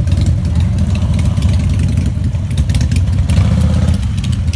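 Several cruiser motorcycles ridden slowly past in a group, their engines giving a loud, steady low rumble at low revs.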